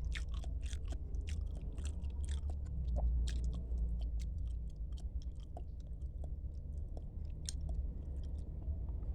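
Chewing and mouth smacking of a person eating a meal of tilapia and spinach: a quick run of small wet clicks, thickest in the first few seconds, then slower.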